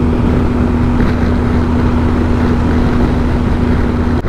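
Motorcycle engine running at steady motorway cruising speed, with wind and road noise over the microphone. A steady drone-like tone holds evenly and drops away just before the end.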